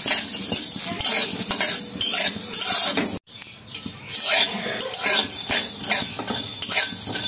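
A spoon stirring cloves and black peppercorns as they dry-roast in a kadhai: metal scraping and clinking against the pan, with the spices rattling. The sound cuts out briefly about three seconds in, then the stirring and clinking go on.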